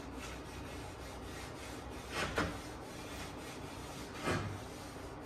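Gloved hand wiping stain along a wooden trim board: quiet rubbing strokes, with a couple of short louder scrapes about two seconds in and another one a little past four seconds.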